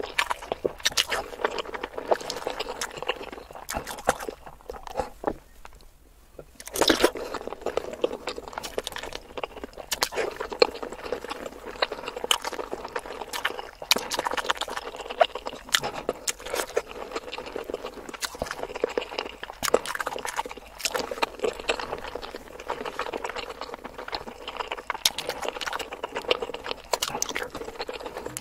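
Close-miked ASMR eating sounds: wet chewing and mouth smacks of whole boiled eggs dipped in a spicy red sauce. A short quieter pause comes about five seconds in, followed by a loud bite.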